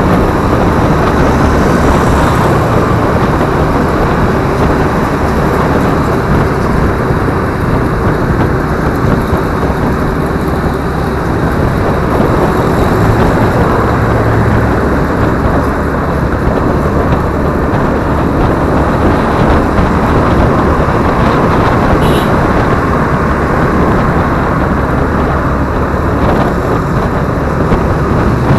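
Steady rush of wind over the camera microphone while riding a Honda scooter, with the scooter's engine and surrounding road traffic mixed in underneath.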